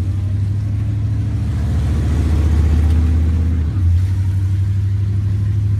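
Monster truck engine running under load as the truck drives off, a loud steady low drone heard from the cab, with a brief dip about two-thirds of the way through.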